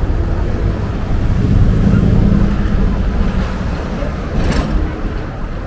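City street traffic: a steady low rumble that swells with a vehicle's engine about two seconds in, then eases off. There is one brief sharp clatter a little after four seconds.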